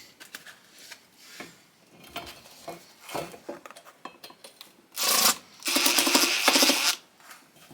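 Light metal clicks and scrapes of hardware being worked, then, about five seconds in, a loud grating rasp lasting about two seconds as a cross-threaded fastener is forced through its threads.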